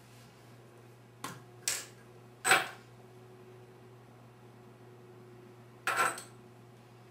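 A lipstick tube, its cap and other small hard items clicking and being set down on a bathroom countertop. There are four short clicks: two light ones in the first two seconds, a louder one about two and a half seconds in, and another near six seconds, over a faint steady hum.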